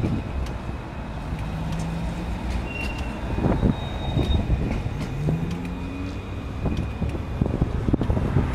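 Road traffic at a tram junction: a steady low rumble of cars and engines, with a few short engine hums, as a C-class tram crosses.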